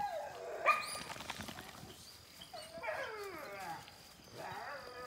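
Several hunting hounds giving voice, with short yelps and longer cries that fall in pitch, the cries overlapping about three seconds in.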